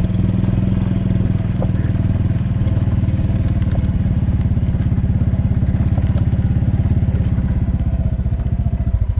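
Golf cart's small gasoline engine running steadily with an even, rapid pulse. Right at the end it slows and drops away as the cart stops.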